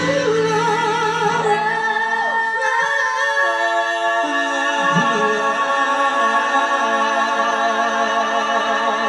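A small group of voices singing together in harmony, holding long notes with vibrato, stacked chords that shift a few times.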